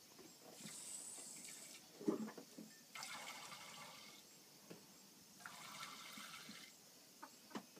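Milk squirting from a hand-milked teat into a stainless steel bowl: three squirts, each about a second long, about two and a half seconds apart. There is a short thump about two seconds in.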